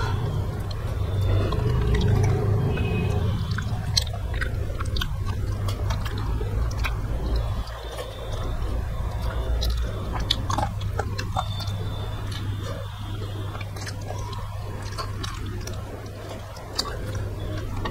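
Close-miked chewing and wet mouth sounds of two people eating rice with fish and chicken curry by hand, with many short, irregular smacks and clicks. A steady low hum runs underneath.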